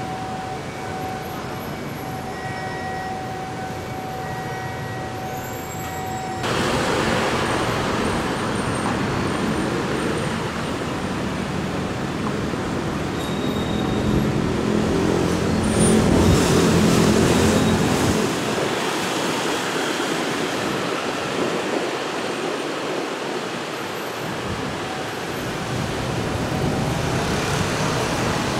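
Steady traffic and rail noise, a continuous rushing that gets suddenly louder about six seconds in and swells to its loudest in the middle, with a low hum there, before easing off.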